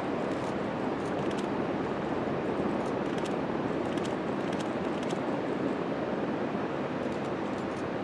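Narrow-gauge Rhaetian Railway electric multiple unit (Capricorn type) running out of a tunnel on a curve: a steady rumble of wheels on rails, with faint high ticks now and then.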